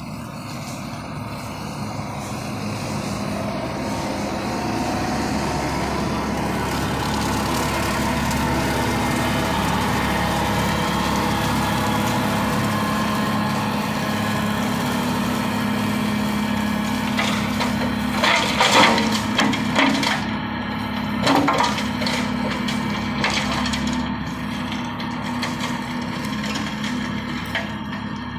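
ELHO Tornado side-mounted mulcher, driven by a tractor, running through long grass: a steady mechanical drone with a low hum that grows louder over the first several seconds. In the second half comes a run of sharp cracks and snaps as the cutter strikes wood.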